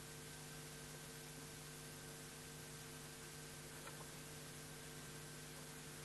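Steady low electrical hum with a constant hiss, with a faint tick about four seconds in.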